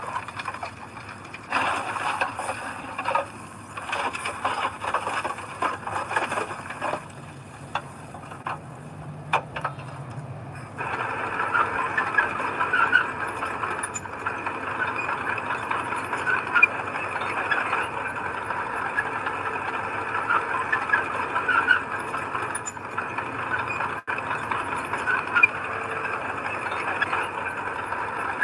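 Heavy earthmoving machinery working, likely a crawler bulldozer. Irregular metallic clanking and rattling turns, about eleven seconds in, into a louder, steadier running sound with frequent high metallic squeaks, like steel tracks moving.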